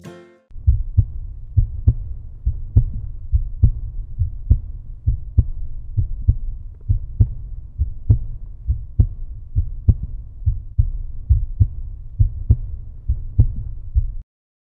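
Outro soundtrack: a deep, low thumping pulse, about one strong beat a second with softer beats between, that cuts off suddenly near the end.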